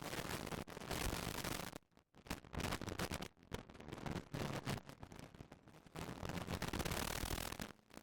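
Poor onboard recording from a Caterham 340R race car at speed: a rough, crackling wash of noise with the engine barely made out. It drops out almost completely for brief moments, once about two seconds in and again near the end.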